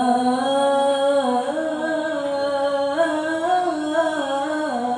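A teenage boy's voice reciting the Quran in the ornamented, sung style of tilawah, holding one long drawn-out melodic phrase amplified through a microphone. The pitch wavers up and down in slow steps, climbs about three seconds in, and falls away near the end.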